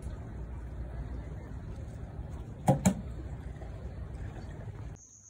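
Steady low rumbling noise with two sharp knocks in quick succession about two and a half seconds in. Near the end it cuts to a quieter background with a steady high insect trill.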